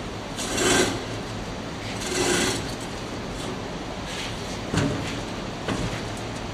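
A sand-filled molding flask on its bottom board being flipped over and handled on the table: two brief scraping, sliding noises about a second and a half apart, then two sharp knocks as it is set down on the support bars.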